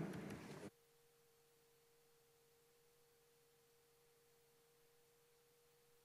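Room noise of an audience moving about and leaving cuts off abruptly under a second in, leaving near silence with a faint steady tone.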